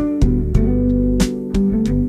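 Background music: guitar-led instrumental with held notes and a steady beat.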